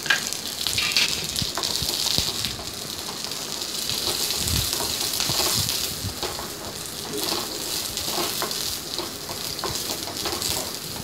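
Shallots and coconut pieces sizzling in hot oil in a flat pan, a steady frying hiss, stirred with a wooden spatula that makes scattered light clicks and scrapes against the pan.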